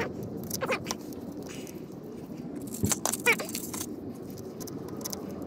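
Faint clinks and knocks of hand work on the underside of a Jeep, metal parts being handled at the transfer case yoke, with a short high squeak about three seconds in.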